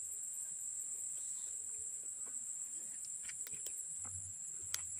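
Steady high-pitched chorus of insects such as crickets, with a few faint clicks from handling the fish and line in the second half.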